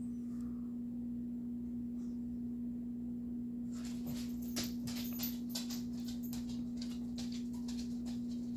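A steady low electrical hum at one pitch, with a run of light, scratchy ticks from about four seconds in as the paintbrush works and the vinyl doll head is handled.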